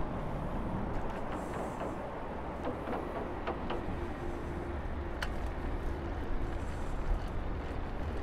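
Steady wind and road rumble from a moving bicycle, caught on a lapel microphone worn by the rider, with a few light clicks through the middle and one sharper tick about five seconds in.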